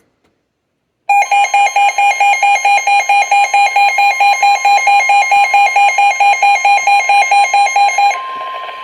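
Weather alert radio's built-in alarm sounding loudly in a fast pulsing beep, several beeps a second, signalling an incoming warning. About eight seconds in it gives way to the steady 1050 Hz NOAA Weather Radio warning tone that comes ahead of the broadcast alert message.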